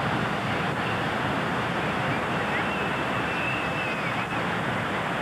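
Ocean surf breaking on a beach: a steady, even rush of waves.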